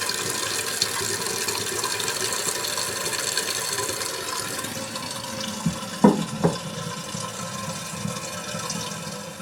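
Toilet tank refilling after a flush: a steady hiss and rush of water coming in through the fill valve that tapers off and fades out near the end. Two short knocks about six seconds in.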